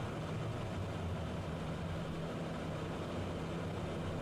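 Steady cockpit noise of a Citation business jet on approach: airflow and a low engine hum while the landing gear extends.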